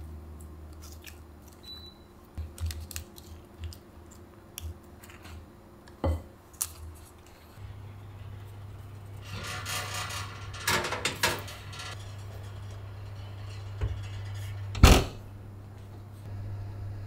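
Soft taps and squishes as apple slices are pressed into cake batter in a metal loaf tin. A little past midway comes a few seconds of metal scraping and clatter as the tin goes onto the oven rack, then near the end a single loud thump as the oven door shuts, over a steady low hum.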